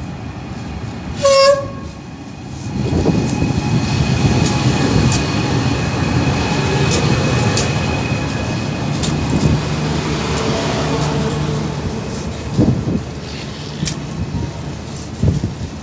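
A passenger train's horn gives one short toot about a second in, then the train passes with a steady rumble of wheels on the rails and a few knocks.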